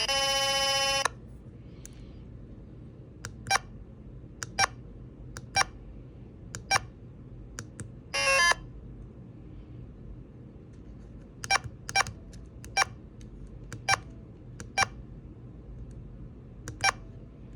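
Electronic game sounds from the Darkish Tower's small speaker: a synthesized tone cuts off about a second in, followed by a dozen short, sharp beeps at irregular intervals, like keypad presses, with one brief tone burst near the middle.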